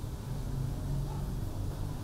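Electric fan running with a steady low hum, with rain hissing faintly behind it.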